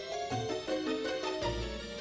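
Background music: a light melodic tune of short stepping notes over a bass line.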